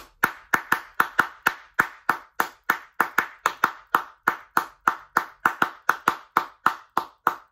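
Hand clapping in a rhythmic pattern, about three sharp claps a second, keeping the beat of a song between sung verses.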